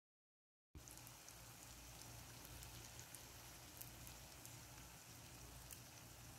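Dough buns frying in hot oil: a faint, steady sizzle with small scattered pops, cutting in suddenly under a second in.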